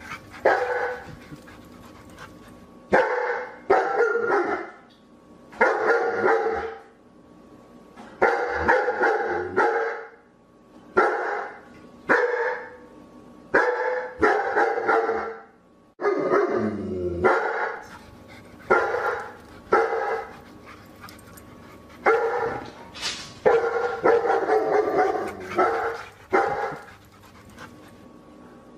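Dog barking in repeated short runs of barks, a new burst every second or two.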